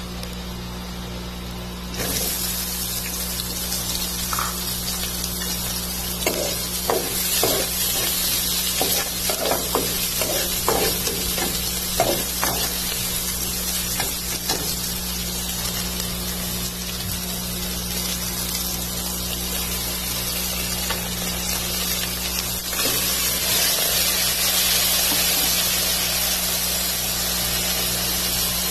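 Ginger and onion sizzling in hot oil in an aluminium pot, with a metal spoon clinking and scraping against the pot as it stirs. The sizzle starts suddenly about two seconds in and grows louder near the end, with sliced pork liver in the pot.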